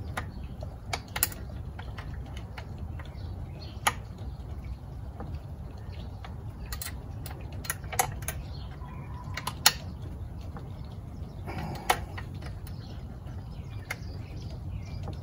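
Scattered small clicks and taps of hand tools and parts on a 7.5 hp Mercury outboard's engine as its fasteners are tightened, over a steady low rumble.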